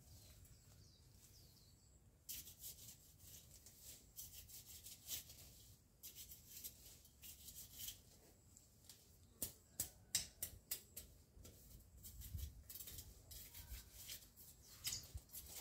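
Faint, irregular crinkling and crackling of plastic sheeting being handled. It starts about two seconds in, with a burst of sharper crackles around the middle.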